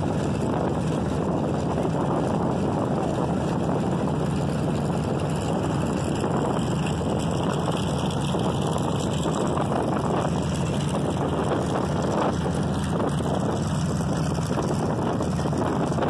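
Several propeller aircraft radial engines running steadily at warm-up, a dense continuous drone with no revving.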